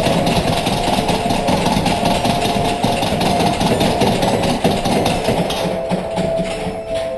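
A loud, dense rumbling noise over a steady held note of background music; the rumble eases off near the end.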